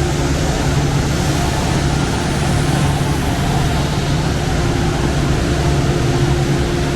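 Cotton gin machinery running: a loud, steady rushing noise like big fans, with a constant low hum under it.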